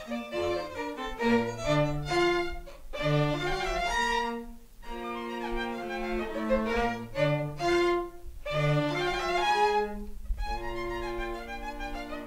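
Bowed strings playing classical chamber music, violin on top over a cello line, in quick phrases broken by brief pauses.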